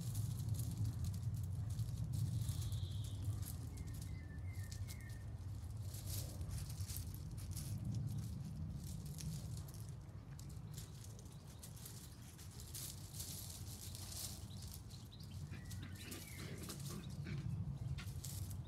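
Outdoor ambience: a steady low rumble with faint bird chirps now and then, and scattered light clicks and rustles.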